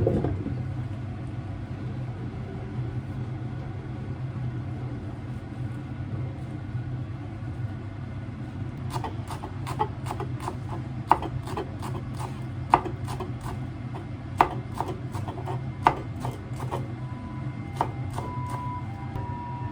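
Irregular knocks and taps on a wooden surface, typical of kitchen work on a cutting board, starting about halfway in, with the sharpest knocks about every one and a half seconds. A steady low hum runs underneath.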